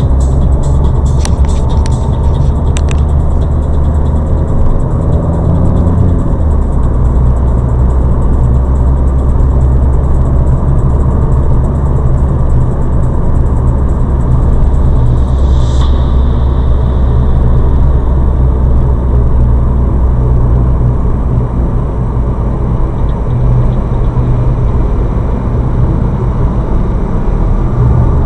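Steady low road and engine rumble of a moving car, heard from inside the cabin by a dashboard camera's microphone. A brief high-pitched tone comes about halfway through.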